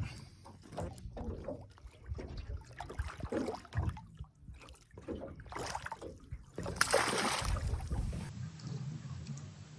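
Seawater sloshing and splashing beside the boat's hull as a red bass is lowered in and released, with a louder rush of splashing about seven seconds in. After that a steady low hum takes over.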